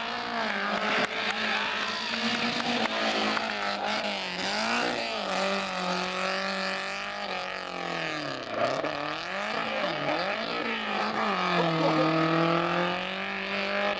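Renault 5 rally car's engine revving hard through a slalom. The pitch climbs and falls with each burst of throttle, dropping sharply twice about two-thirds of the way in as the driver lifts off and shifts, then climbing again.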